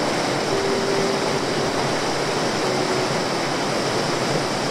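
Steady rush of a small creek waterfall cascading through a rock gorge, an even, unbroken noise.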